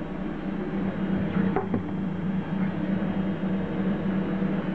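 A plastic bucket lid being handled and set on a plastic bucket, with a couple of sharp knocks about a second and a half in, over a steady low hum.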